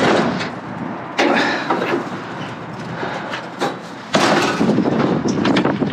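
Knocks and clatter of objects being handled and moved, with a louder stretch of rattling from about four seconds in.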